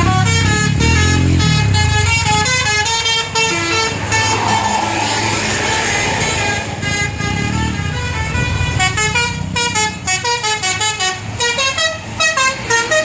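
Indonesian tour bus 'telolet' melody horn playing a fast tune of stepped notes in two runs, with a break in the middle. The bus engine rumbles as it passes about a second in and again near eight seconds.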